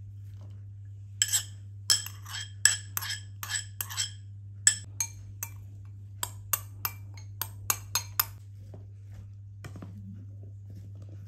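Cutlery clinking repeatedly against a ringing dish: some twenty quick, light strikes in an uneven rhythm, starting about a second in and stopping a few seconds before the end, over a low steady hum.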